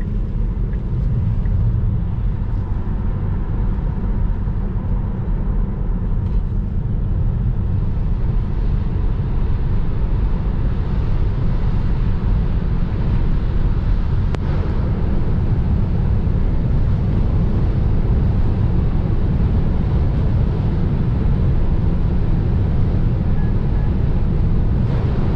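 Cabin noise of a Tesla Model 3 Long Range cruising at about 140–170 km/h. It is a steady low roar of tyres and wind, with no engine note from the electric drive.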